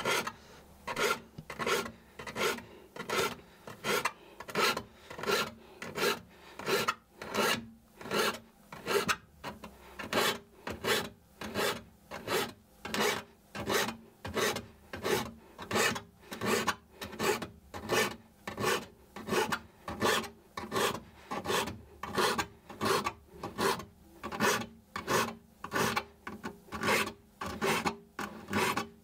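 A fine hand file stroking across the steel teeth of a Japanese ryoba pull saw held in a wooden saw vise, sharpening the teeth one by one: a steady rhythm of short filing strokes, about three every two seconds.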